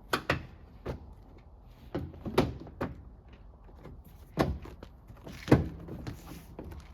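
A series of sharp knocks and thumps as a plastic interior door trim panel is handled and pressed back onto the door, the loudest about two and a half and five and a half seconds in.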